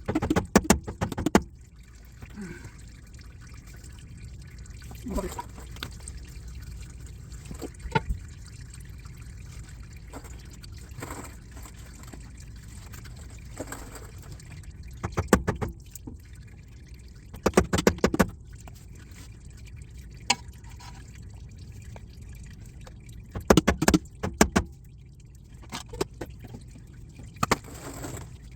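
Bursts of rapid sharp metal-on-metal tapping as hand tools are driven into and pry at the old output shaft seal to tear it apart, with pauses between the bursts.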